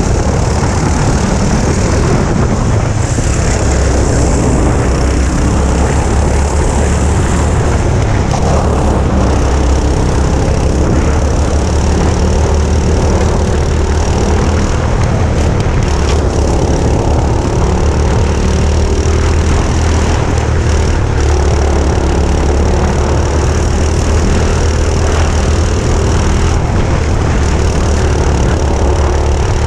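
Go-kart engines running at racing speed, loud and continuous, with engine pitch rising and falling as the karts speed up and slow through the laps.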